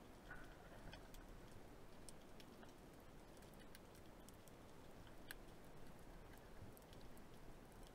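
Near silence underwater: a faint low rumble of water with scattered, irregular tiny clicks.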